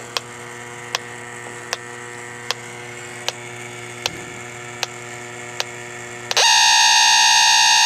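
H10 electronic refrigerant leak detector ticking slowly, about once every three-quarters of a second. About six seconds in it breaks into a loud, steady alarm tone: it has picked up escaping R-410A refrigerant at the leak.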